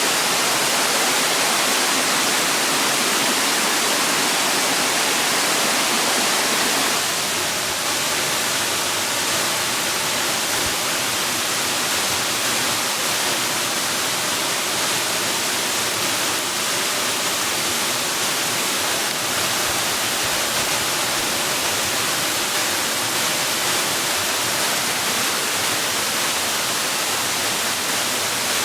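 Steady rushing water of a waterfall, a dense, even roar with no breaks. About seven seconds in, the sound shifts, becoming slightly quieter and rougher, and then runs on unchanged.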